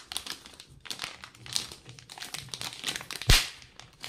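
Thin clear plastic bag crinkling and rustling as a TV remote is worked out of it by hand, with a sharp knock about three seconds in.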